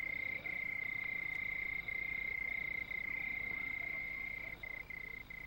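Night ambience of one steady, high-pitched animal trill, broken only by brief gaps and fading near the end.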